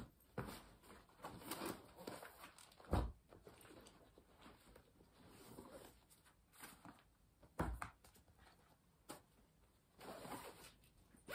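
Faint rustling and a few soft thumps of books and notebooks being packed into a fabric backpack, with two sharper knocks about three and eight seconds in.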